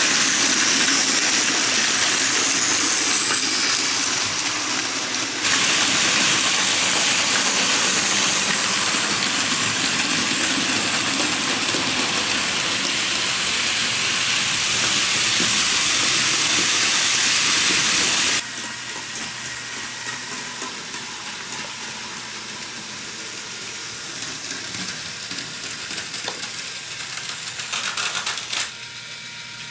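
Model trains running on a layout: a steady whirring rattle of small motors and wheels on the track. About 18 seconds in it drops sharply to a quieter running hum with light clicking.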